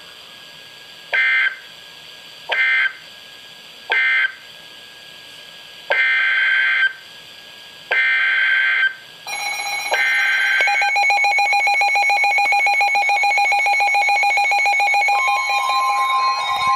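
Emergency Alert System (SAME) digital data bursts: three short screechy bursts, then three longer ones about two seconds apart. About nine seconds in, a steady alert tone starts over them, and near the end a second, higher steady tone joins it.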